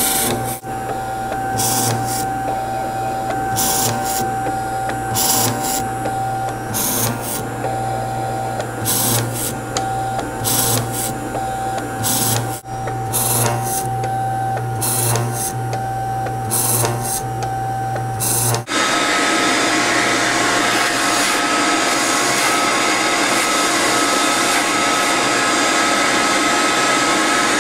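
Small 7-inch by 7-inch CNC mill drilling through-holes in copper-clad circuit board: a steady spindle whine and motor hum, with a short burst each time the bit plunges into the board, a second or two apart. About two-thirds of the way through a vacuum cleaner starts up over the board, its steady rushing taking over.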